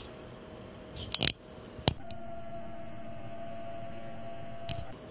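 A camera's zoom motor hums steadily for about three seconds while zooming in, with a few handling clicks just before it starts and a click as it stops.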